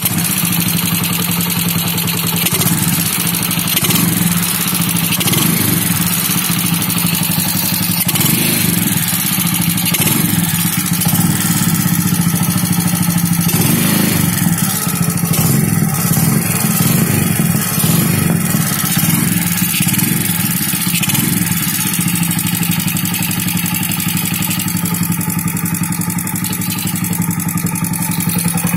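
A small motorcycle's single-cylinder carburetted engine running steadily at a low idle through an aftermarket exhaust. The idle has just been set on the Mikuni carburettor's idle-speed and air screws, and the speaker judges this setting the best.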